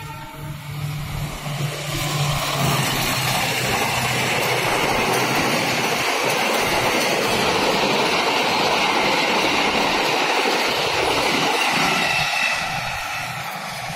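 Sembrani passenger train passing close by: a low diesel engine hum in the first couple of seconds, then a steady rush of wheel-on-rail noise from the coaches that builds, holds, and eases off near the end as the last coach goes by.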